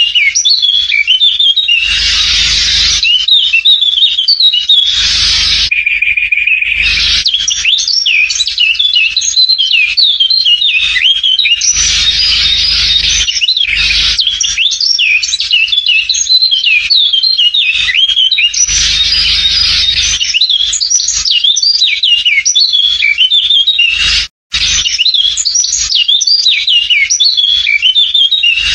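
Many small birds chirping and twittering without a break, in quick, high notes. Several louder, rougher bursts of about a second each break in, and there is a momentary gap in the sound about three-quarters of the way through.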